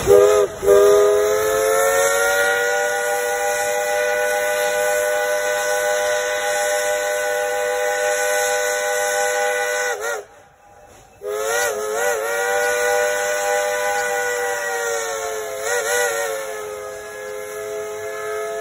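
Chime steam whistle of a narrow-gauge steam locomotive blowing, several tones sounding together as one chord. A short toot is followed by a long blast of about nine seconds. After a second's break come two quick toots and another long blast, then two more toots and a blast that runs on. Each blast slides briefly up in pitch as it starts.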